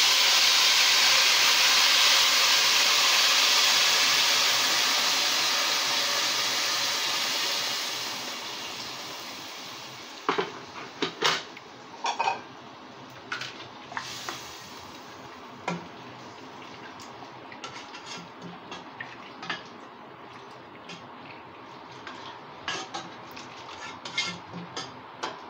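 Hot water poured from a kettle into a hot pot of oil-browned vermicelli, a loud pouring hiss that dies away after about eight seconds. Then a utensil clinks and knocks against the pot now and then as the noodles are stirred.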